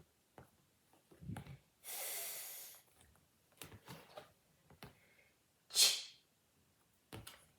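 A person voicing phonics sounds without a vowel: a long breathy hiss of 'th' about two seconds in and a short sharp 'ch' near six seconds, with small mouth clicks and breaths between.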